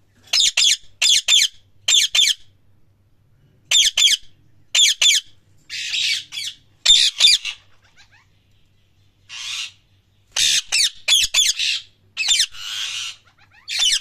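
Lutino Indian ringneck parakeet calling: loud, shrill, rapid squawks in short bursts of two or three, mixed with a few longer harsh screeches, with pauses of a second or more between the bursts.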